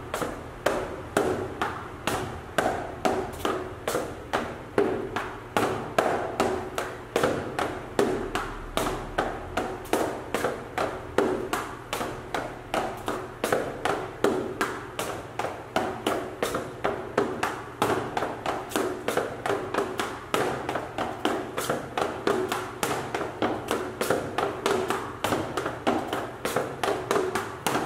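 Boot heels and soles tapping and scuffing on a dance platform in Mexican folklórico valseado footwork: a steady run of quick, even taps, about three a second.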